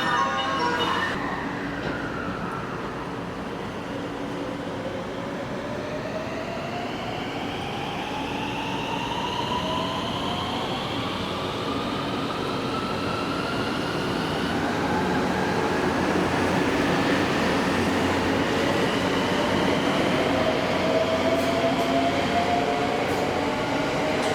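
Train pulling away and gathering speed, its drive whining in several tones that rise steadily in pitch over a rolling rumble that grows louder.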